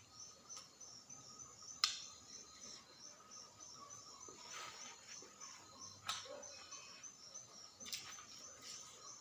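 Faint, steady chirring of night insects such as crickets, with a few soft clicks and taps scattered through it.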